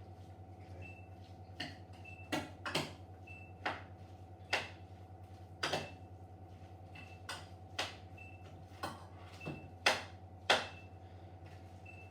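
Spoon knocking against a frying pan while mince and mushrooms are stirred: a dozen or so irregular sharp taps over a steady low hum.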